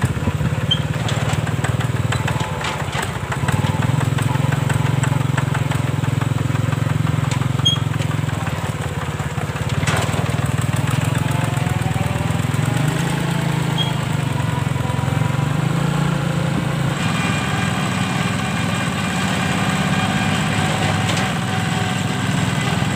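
Single-cylinder diesel engine of a two-wheel hand tractor running steadily under load as it pulls a trailer along the road. The engine note changes about two-thirds of the way through.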